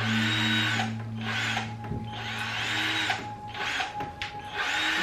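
Power drill running in spurts of about a second, stopping and starting several times, over a steady low hum.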